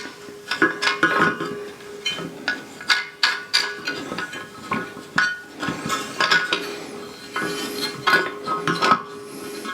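Repeated metallic clinks and knocks at an irregular pace from handling a telescope tripod's parts as the eyepiece tray is fitted between the legs and turned on its adjustment knob, over a faint steady hum.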